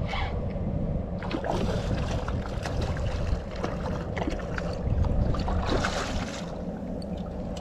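Wind noise on the microphone, with splashing from a hooked redfish thrashing at the water's surface beside the boat, in bursts about a second and a half in and again around six seconds in.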